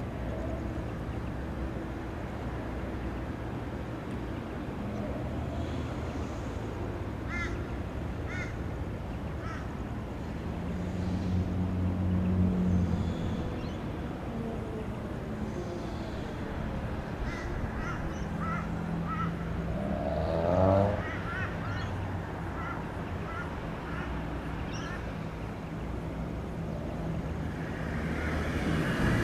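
Outdoor ambience of a steady low hum, which swells for a couple of seconds around the middle, with birds calling in short chirps and one louder cawing call about two-thirds of the way in. A vehicle grows louder near the end.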